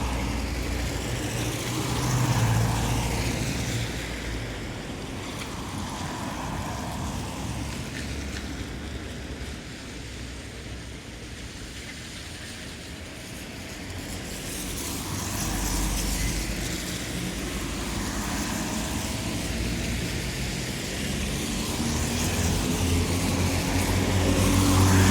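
Road traffic on a wet road: tyres hissing on wet pavement as cars pass one after another, swelling and fading, with a quieter stretch in the middle and engine hum rising again near the end.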